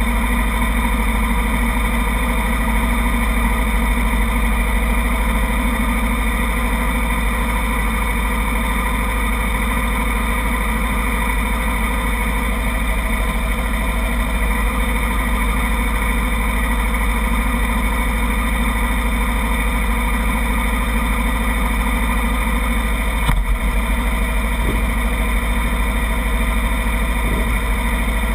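Several 250 cc race motorcycles idling steadily, with one brief knock near the end.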